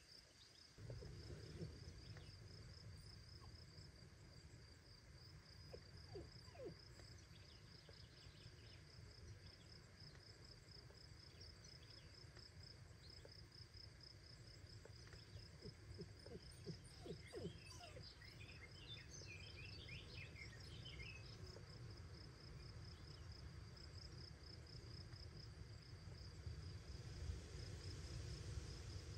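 Faint insect chirping in a fast, even pulse, high in pitch and steady throughout. A low rumble sits beneath it from about a second in.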